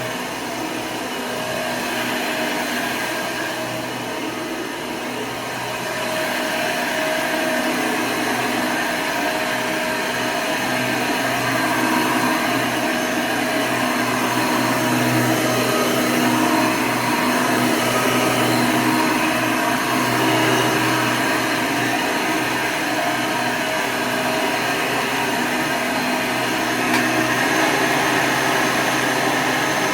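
1992 Hoover Legacy II upright vacuum cleaner, fitted with a 20-bladed motor fan, running steadily. It gets a little louder about six seconds in.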